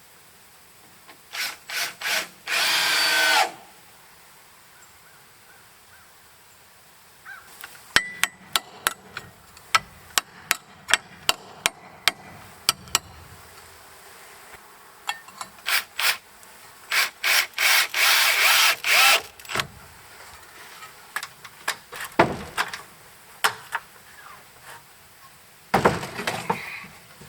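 Power drill running on wood in short bursts of a second or two, with a run of sharp knocks and clicks in between.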